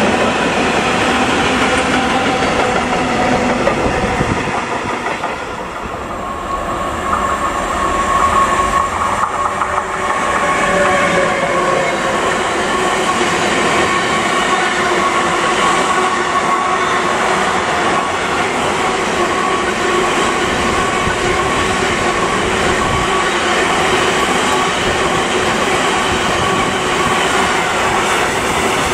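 A train running past, loud and steady throughout, with a steady high tone that comes in about seven seconds in and holds.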